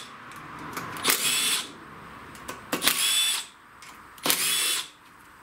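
Milwaukee cordless driver spinning in three short bursts of about half a second each, a high whir, as it backs out the 8 mm mounting bolts of a Kohler Courage engine's ignition coils.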